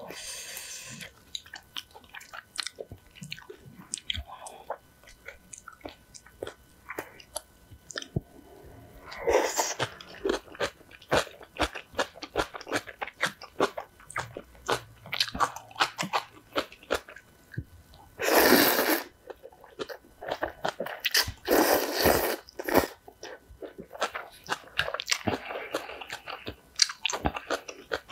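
Close-miked eating sounds of a person chewing spicy instant ramen noodles, with many small wet mouth clicks. Several loud slurps come through, the loudest a little past halfway and another a few seconds later.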